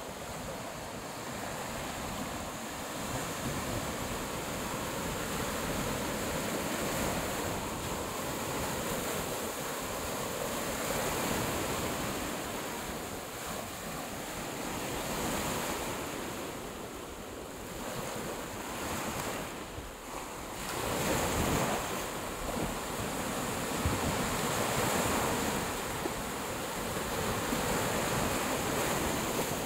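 Small waves breaking and washing up a sandy shore against boulders, the surf swelling and easing, with wind buffeting the microphone.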